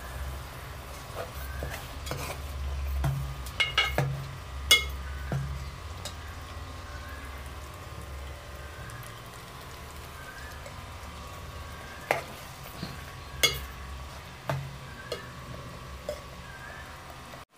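A metal ladle stirring fish pieces in a pot of frying masala, with a light sizzle and a few sharp clinks of ladle on pot, in two clusters about four seconds in and again about twelve seconds in. A steady low hum runs underneath.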